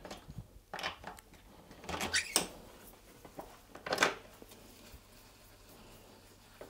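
A few short clicks and knocks of bicycle parts being handled as a mountain bike's rear wheel is fitted into the frame, the sharpest about 1, 2 and 4 seconds in.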